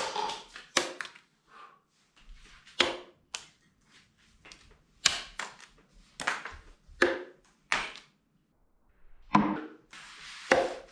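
A series of sharp taps and clacks from small hard objects striking, irregularly spaced, more than a dozen in all, some with a short ringing tail.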